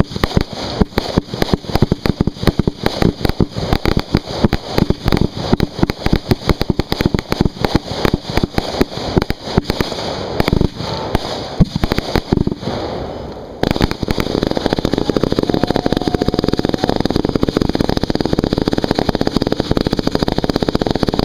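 Fireworks firing at close range from beside the launch racks: a rapid barrage of sharp launch reports and bursts, many a second. About thirteen and a half seconds in, it thickens into a dense, unbroken crackle.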